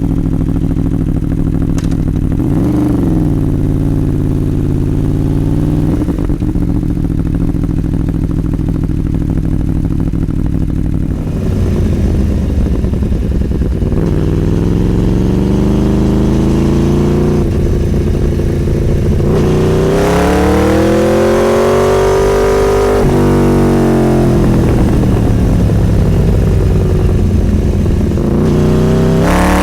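Motorcycle engine running under way. The pitch holds fairly steady for the first half, then climbs and drops several times in the second half as the rider accelerates and eases off.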